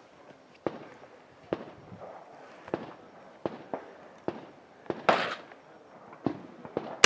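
Rifle gunfire: scattered faint, sharp cracks of shots, with a louder shot about five seconds in and another at the very end.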